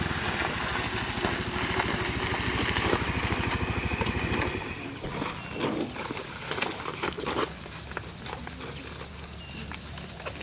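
Small motor scooter's engine running with a fast, even pulsing as it rides up and stops, cut off about four to five seconds in. Scattered light rustles and clicks of plastic bags being handled follow.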